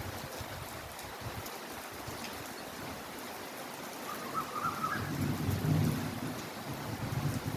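Heavy rain falling steadily, an even hiss of drops. About five seconds in, a low rumble swells up under it.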